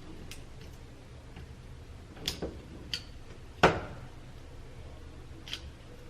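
Small surface-mount components being snapped off a circuit board with a hand tool: about five sharp clicks and snaps at irregular intervals, the loudest a little past halfway.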